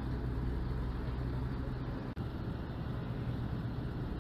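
Steady low drone of a river cruise ship's engines running, with a very brief dropout about two seconds in.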